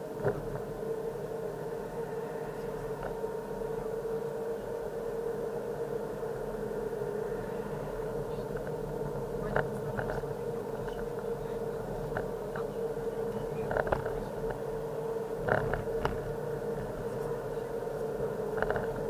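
Car driving, heard from inside the cabin: steady engine and road noise with a constant hum, and a few short knocks or rattles along the way.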